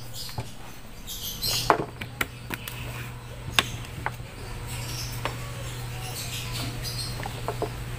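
Scattered sharp clicks and light knocks of hand work on plywood: a plastic wood-glue bottle being handled and set down, and wooden strips being positioned. A steady low hum runs underneath.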